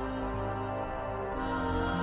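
Background music: slow, sustained new-age style tones with gentle chord changes.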